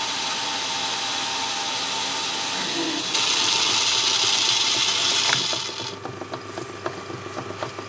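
Metal lathe running while turning a mild steel bar down, with a steady machine hum. About three seconds in a louder, harsher hiss sets in for a couple of seconds as the work is cut. Near six seconds the lathe goes quiet, leaving small clicks and knocks.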